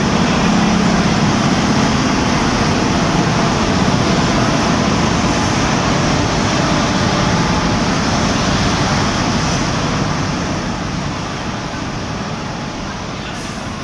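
Steady, loud mechanical rumble and hiss from a converted WAGC3 electric locomotive standing at the platform. It starts abruptly and eases slightly in the last few seconds.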